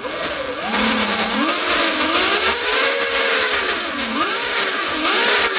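A bicycle's add-on power-kit engine runs with the rear wheel spinning in the air, revved up and down several times with light throttle to drive the chain while the freewheel and split sprocket are aligned.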